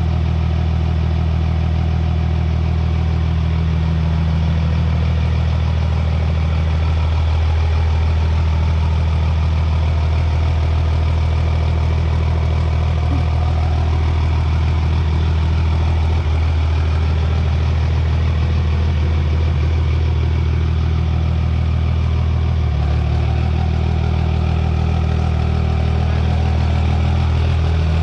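Cummins inline-six diesel engine in a drag truck idling steadily, with a slight shift in its note a little over three-quarters of the way through.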